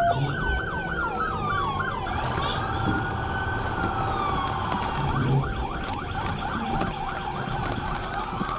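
Police car sirens sounding during a pursuit: a fast yelp, then a slow rising-and-falling wail in the middle, then the fast yelp again.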